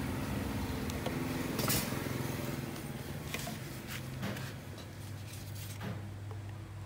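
Handling noise from a small two-stroke brushcutter engine being turned over and set down on cardboard: a few scattered knocks and clicks of metal and plastic parts, over a steady low hum.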